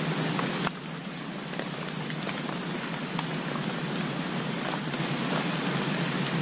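Rain falling in the forest: a steady hiss with scattered small drips and taps, under a steady high-pitched tone. The level drops suddenly under a second in, then stays steady.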